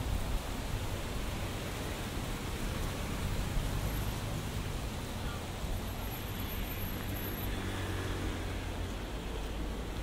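Steady road-traffic noise outdoors: a low rumble under an even hiss, with no single event standing out.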